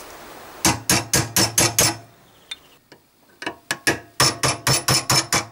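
Hammer blows on a cold chisel driving against the steel outer ring of a shock-absorber silentbloc stuck in a car's rear suspension arm. The blows come in two quick runs of sharp metal-on-metal strikes, about five a second, with a pause of about a second and a half between them. The sawn ring is being knocked loose from the arm.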